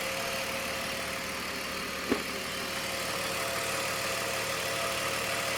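BMW M54 straight-six engine idling, filmed for a strange noise coming from the right side of the engine. A single sharp click about two seconds in.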